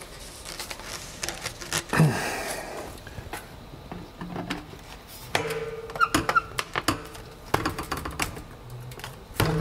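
White PVC pipe and elbow being pushed and twisted onto a vacuum canister's inlet as a dry fit: a string of sharp plastic clicks and knocks, the loudest about two seconds in.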